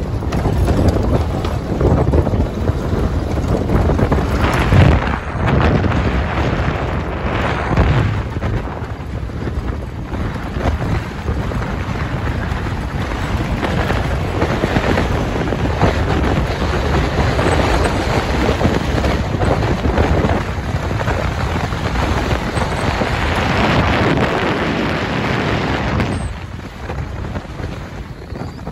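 Wind buffeting the microphone over the rumble of a safari vehicle driving on a gravel dirt road, gusting up and down, easing off somewhat near the end.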